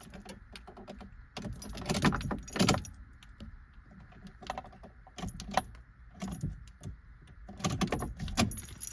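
A bunch of keys jangling, with irregular clicks and knocks of handling; no engine is running.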